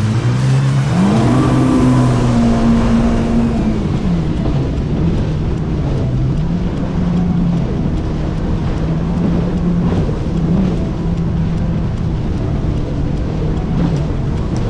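Jet ski engine running under way. The throttle opens about a second in and holds for a couple of seconds, then eases back and the engine runs on at a lower, wavering pitch.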